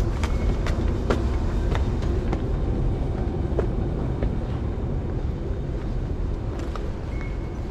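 Footsteps climbing stone stairs, a step about every half second, then fewer and fainter steps on the flat floor, over a steady low rumble.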